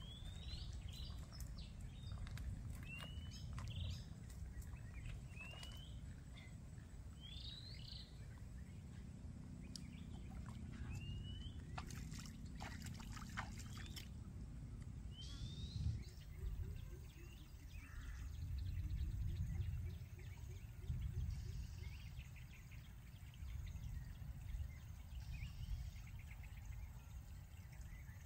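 Outdoor creekside ambience: a bird repeats short rising chirps every second or so, stopping about halfway, over a low steady rumble and trickling creek water, with a few sharp clicks.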